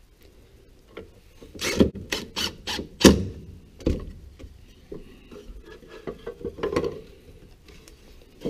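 Wooden chair slats and a cordless drill being handled on a workbench: a quick run of sharp clicks from about a second and a half in, then a few scattered knocks and rubbing.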